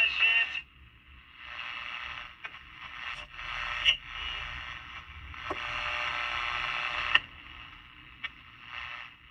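Mitsubishi Electric pocket radio hissing with static from its small speaker, off-station as the dial is turned. The hiss comes and goes in patches with a few sharp clicks and crackles. A broadcast voice cuts off about half a second in.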